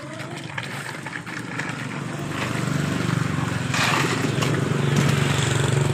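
A low, steady engine-like drone that builds up and grows louder over a few seconds, with a brief scraping rush about four seconds in.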